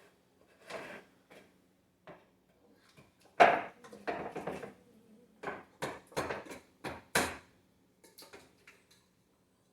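Irregular knocks and clatter of objects being handled. The loudest knock comes about three and a half seconds in, followed by a quick run of knocks over the next few seconds.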